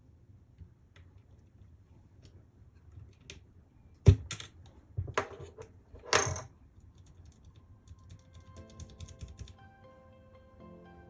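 Keys being typed on a Keychron K3 low-profile mechanical keyboard with Gateron Brown switches: irregular light key clicks, with a few louder knocks about four to six seconds in. Soft background music comes in near the end.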